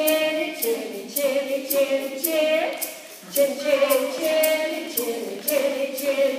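A woman singing a refrain unaccompanied in held phrases about a second long, with sharp finger snaps keeping time about twice a second.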